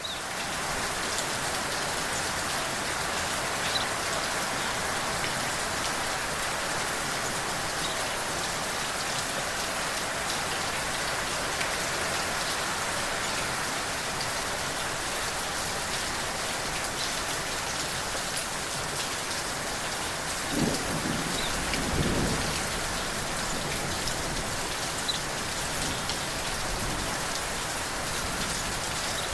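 Steady rain falling, with scattered drop ticks, and a low roll of thunder about two-thirds of the way through.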